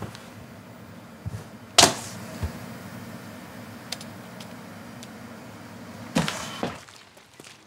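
Desk work with paperwork and office things: a sharp clack a little under two seconds in, a few lighter taps, and a short swish of paper about six seconds in, over a steady low hum.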